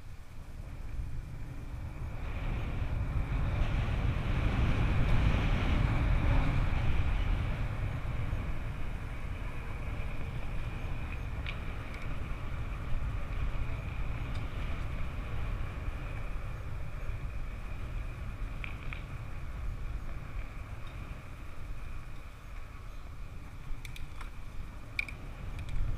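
Downhill mountain bike on a dirt trail: steady wind rumble and tyre noise, building over the first few seconds and easing off after about eight, with a faint steady high whine and a few sharp clicks and rattles near the end.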